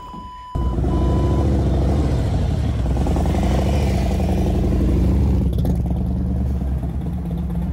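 Harley-Davidson Electra Glide's V-twin engine running steadily at low speed as the bike is ridden into the garage. It comes in sharply about half a second in.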